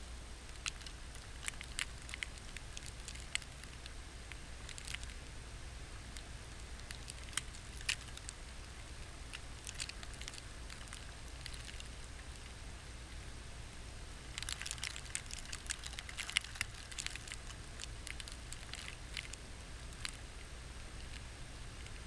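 Blizzard wind as a steady low noise on the microphone, with irregular light ticks and crackles of windblown snow striking the camera. The ticks come in a thick cluster about two-thirds of the way through.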